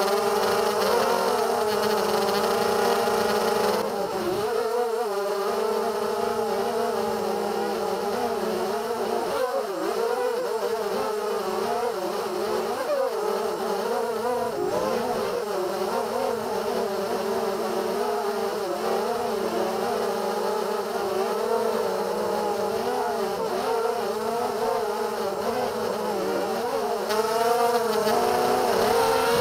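DYS BE1806 2300KV brushless motors spinning 5-inch props on a ZMR250 racing quadcopter, whining steadily in flight, the pitch wavering up and down with the throttle. The whine drops a little about four seconds in and grows louder again near the end.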